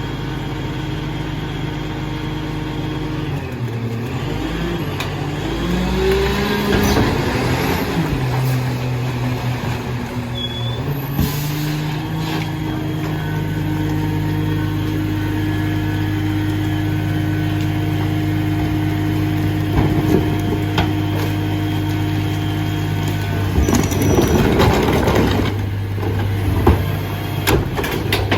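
Diesel engine of a Dennis Eagle rear-loader garbage truck running, its pitch shifting up and down for a few seconds early on and then holding steady at a higher speed. A short air hiss comes near the middle, and a louder rough noisy burst comes near the end.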